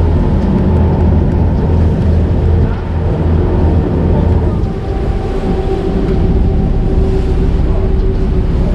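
Charter fishing boat's engine running steadily with a low hum, its tone shifting slightly about halfway through.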